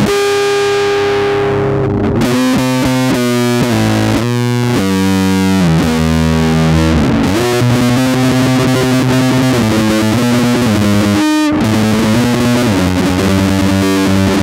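Four-string electric bass played fingerstyle through an amp, running a fast metal riff. It opens on a held note, then moves through quickly changing notes, with a brief break about eleven seconds in.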